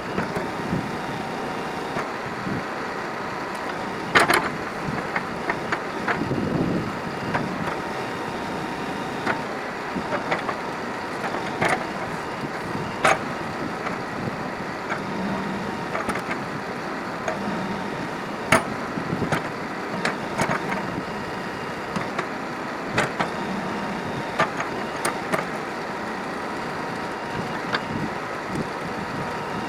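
W1C4 backhoe loader running steadily, with a faint whine, while short sharp knocks and clanks come at irregular intervals, the loudest about four seconds in and near the middle.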